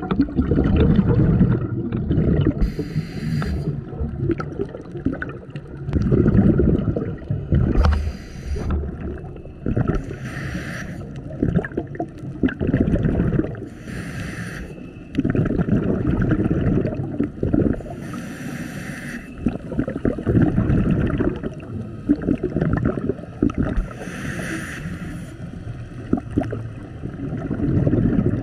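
Scuba diver breathing through a regulator underwater: a short hiss with each inhalation every few seconds, and in between a low bubbling rumble of exhaled bubbles.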